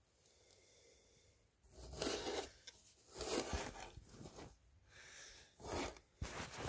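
Handling noise from a handheld phone being moved about: several short bursts of rustling and scraping, the loudest about two seconds and three and a half seconds in.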